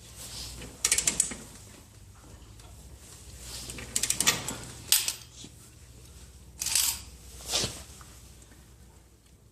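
Metal clicking and clinking in a handful of short bursts, from hand work with tools on a motorcycle's drive chain.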